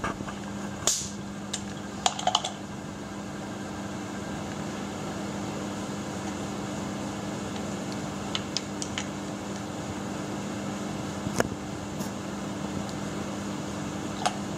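A steady mechanical hum, with a few light clicks and clinks as the compression gauge and its hose are handled.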